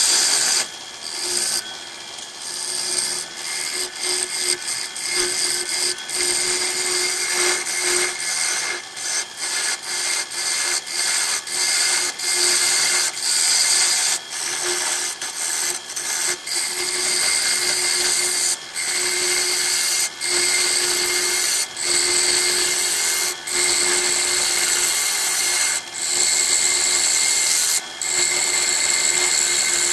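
A turning tool cuts the face of a large jacaranda bowl blank spinning on a wood lathe, making a steady hissing scrape as shavings come off. The scrape stops briefly every second or two as the tool leaves the wood, and the lathe's belt-driven motor hums steadily underneath.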